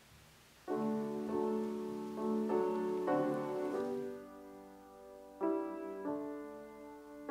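Piano playing slow chords, each struck and left to fade, beginning just under a second in.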